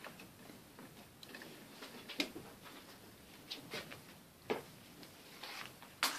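Kittens play-fighting: scattered light taps and scrabbles of paws and claws on a fabric sofa and a windowsill, with a few sharper clacks, about two seconds in, halfway through and near the end.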